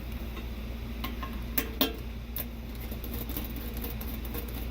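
Sharp clicks and light ticking of a bathroom exhaust fan's blade and motor being handled, the blade pulled off the motor shaft, several distinct clicks a second or two in, over a steady low hum.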